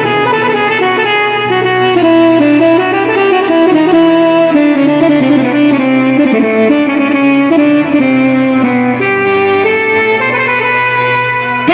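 Instrumental interlude of an Arabic song: a single reedy lead melody winding up and down with ornaments over held low notes, with no singing.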